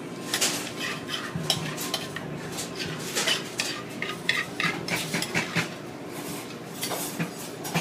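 Metal kitchen utensils clinking and scraping against pans or dishes in quick, irregular strokes, as when stirring or handling food during cooking.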